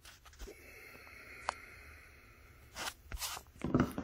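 Faint handling noise: light clicks and rustling, with a few short scuffing bursts near the end.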